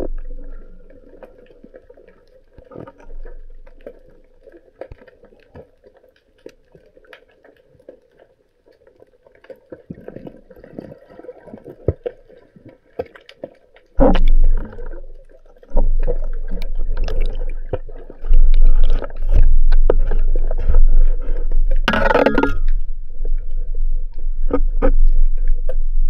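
Underwater sound picked up by an action camera: faint crackling and clicks at first, then about halfway through a loud, low rumble of water rushing over the camera as it moves, with a short loud rushing burst a few seconds before the end.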